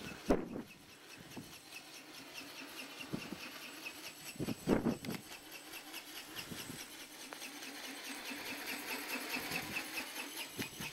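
An RC ornithopter's flapping wings and brushless motor drive heard from below as a fast, even pulsing. Two heavy wind gusts buffet the microphone, just after the start and about five seconds in.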